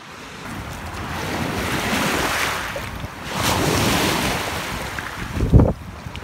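Shallow water washing and lapping over shoreline rocks, with wind buffeting the microphone. A brief loud low thump comes near the end.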